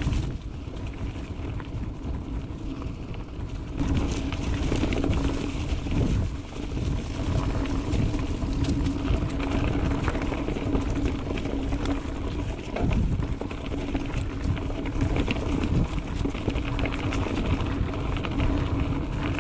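Mountain bike ridden along a dirt trail: a steady rumble of tyres and wind on the microphone, with frequent knocks and rattles as the bike goes over bumps, and a constant low hum underneath.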